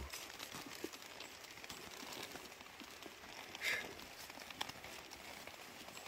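Gloved hands scraping and scooping damp soil and rustling dry leaf litter while digging out a wild ginseng root by hand. Faint, with small scattered crackles and one brief louder rustle a little past the middle.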